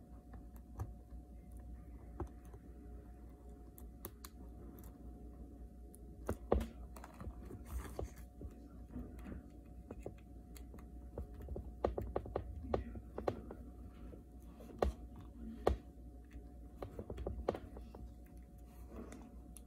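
Irregular small clicks, taps and scratches of a thin repair tool against iPhone 6s parts as the phone is taken apart for a screen replacement, over a steady low hum.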